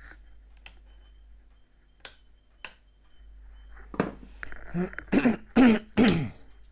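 A man coughing and clearing his throat several times in quick succession, starting about four seconds in, after a few light clicks.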